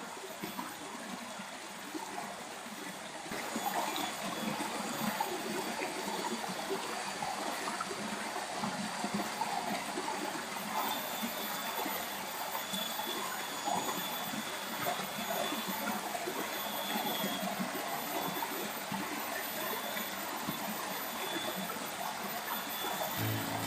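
Flowing stream water babbling steadily, a little louder from about three and a half seconds in.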